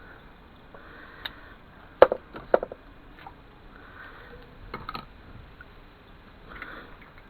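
A few sharp knocks and clatters of small hard objects being handled and set down, loudest as a quick cluster about two seconds in, with more near five seconds, and soft sniffing breaths between.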